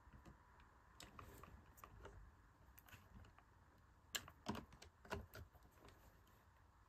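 Faint clicks and taps of hard plastic as a small empty toy water bottle is fitted onto a plastic toy hutch; a handful of scattered clicks, the clearest about four to five seconds in.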